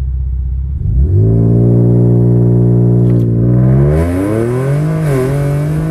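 Infiniti Q60's engine heard from inside the cabin during a hard launch: the revs jump up about a second in and hold level for a couple of seconds, then climb again and dip once near the end as the transmission shifts up.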